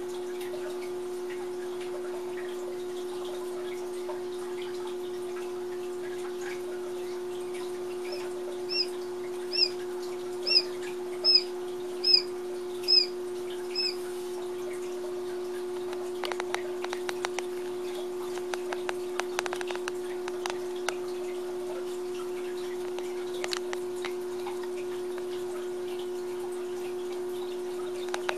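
Days-old Coturnix quail chicks: one chick gives a run of seven short, high, slightly falling peeps about eight seconds in, roughly one a second, over a steady low hum. From about halfway on come many light clicks and scratches of the chicks pecking and moving in wood shavings.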